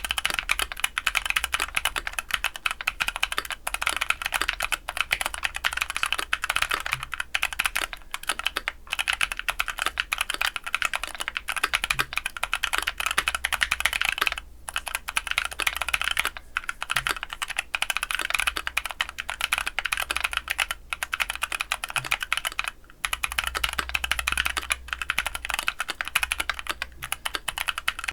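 Mechanical keyboard fitted with PKKeys Misu long-pole linear switches being typed on fast and continuously, a dense run of keystrokes with brief pauses about fourteen and twenty-three seconds in.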